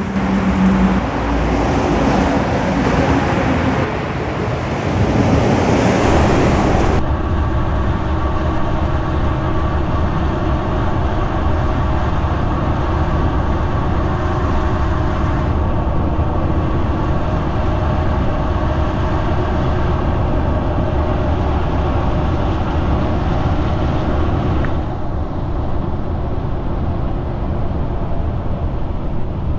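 Highway traffic with a heavy multi-axle dump truck driving past, loudest about six seconds in. After about seven seconds it gives way to a steady road and engine drone from driving alongside a loaded dump truck on the highway.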